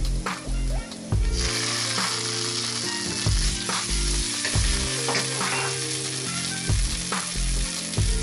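Minced garlic sizzling in hot oil in a nonstick frying pan, stirred with a wooden spatula, with dollops of tomato paste added partway through. The sizzle grows louder about a second in.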